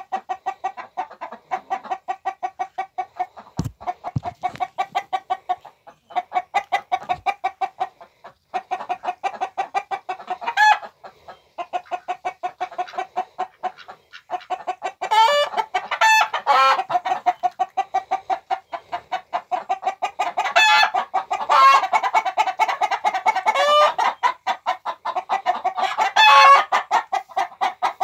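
A flock of chickens clucking: a steady, rapid run of short clucks, several a second. Louder, higher calls break in several times in the second half.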